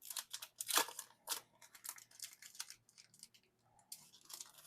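Plastic packaging rustling and crinkling in a series of short, sharp bursts as photo cards are handled and taken out of their sleeves. It is busiest in the first second and again near the end.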